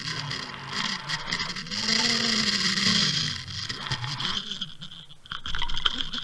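Water rushing and scraping against an underwater camera housing as it is hauled up on a line, with a low hum under it that rises and falls.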